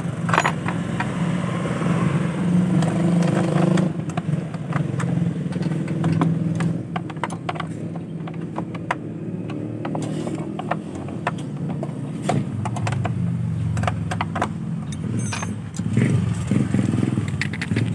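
Light metallic clicks and clinks of a combination wrench working a fender-bracket bolt on a scooter, repeated irregularly. A steady low engine drone runs underneath.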